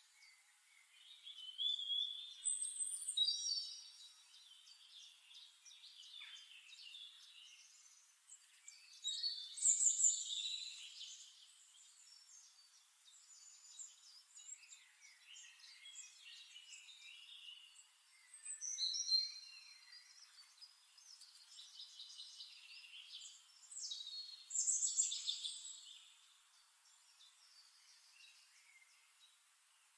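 Birds chirping and singing in short bursts of high, quick notes. The louder phrases come every several seconds, with no low sound under them.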